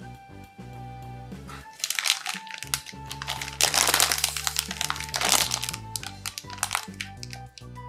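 Background music playing steadily, with loud bursts of crinkling laid over it about two seconds in, again around four seconds and briefly near five and a half seconds.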